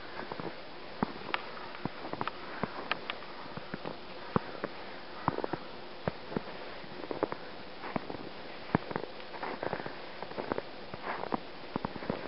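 Footsteps crunching in snow: irregular crisp crackles and clicks over a steady faint hiss.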